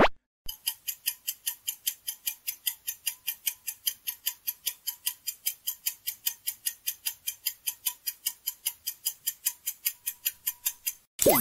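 Countdown-timer sound effect: a clock ticking quickly and evenly, about four ticks a second, for about ten seconds. A short, loud sound effect comes at the very start, and another with a gliding pitch near the end, when the ticking stops.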